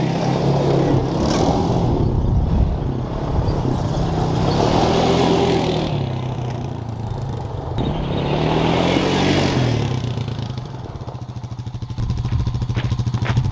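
Honda Rancher 350 ATV's single-cylinder four-stroke engine driving up and past, rising and falling in pitch several times as it speeds up and slows. Near the end it settles to an idle.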